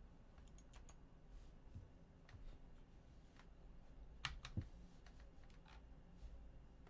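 Faint, scattered clicks and key taps at a computer, with two louder clicks close together a little past halfway.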